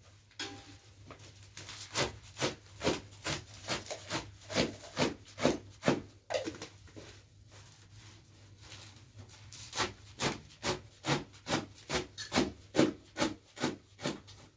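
Fresh leafy greens being torn and their stems snapped by hand over a metal tray: crisp, rhythmic crunching strokes, about three a second. They come in two runs with a short lull between them.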